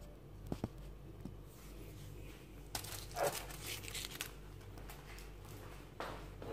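Aluminium foil crinkling as it is pressed and folded over the rim of a baking dish, in a cluster of rustles about three seconds in, with a few light knocks before it.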